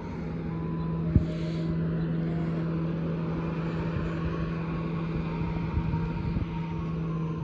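Street sweeper engine running with a steady drone over a low rumble, and one sharp click about a second in.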